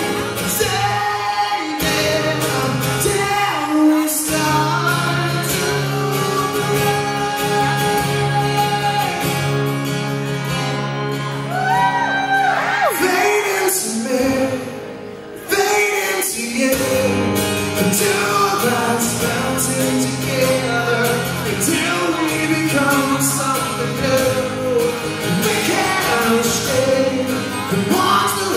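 Live amplified performance of a rock ballad: a male singer with acoustic guitar and backing, in a large hall. Halfway through, the music drops to a brief lull, then comes back in.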